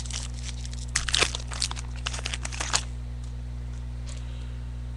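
Trading cards and their pack wrappers being handled: a run of crinkling and light clicks for about two seconds, then quieter handling, over a steady low hum.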